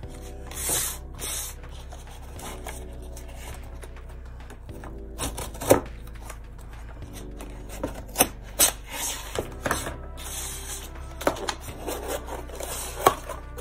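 Scissors blade slitting the tape along the seams of a cardboard box: rasping scrapes of blade on tape and cardboard, with a run of sharp clicks and snips in the second half.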